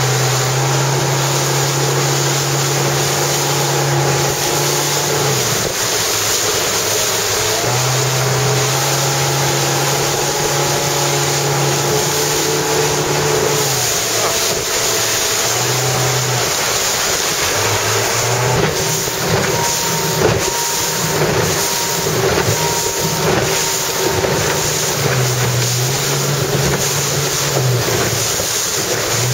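Motorboat engine running, its note stepping up and down and dropping away at times as the throttle changes, over steady wind buffeting and rushing water.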